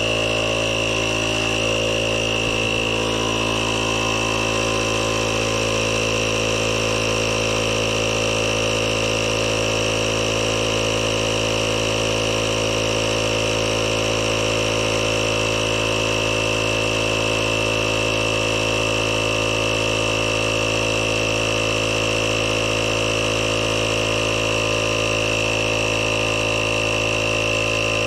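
Air compressor running steadily with an even machine hum and whine, pumping up a tire.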